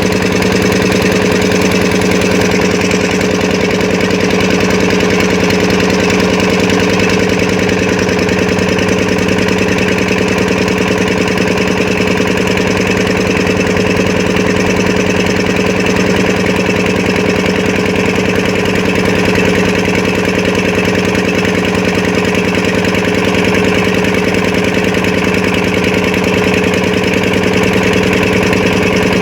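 A small engine running steadily at a constant speed, its hum unchanging throughout.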